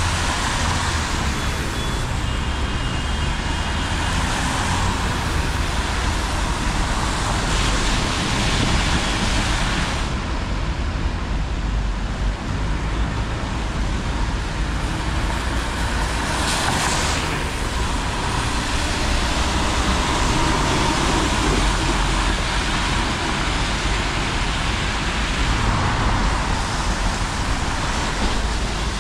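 City traffic on a rain-soaked road: cars and city buses pass, and their tyres hiss on the wet asphalt over a steady low engine rumble. Louder passes come about eight and sixteen seconds in.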